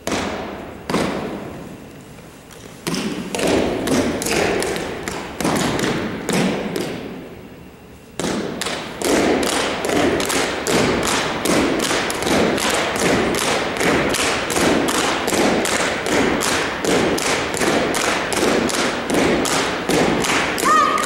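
Drill team stomping and clapping in unison on a gym floor, echoing: a few spaced strokes, then from about eight seconds in a steady beat of about three strokes a second.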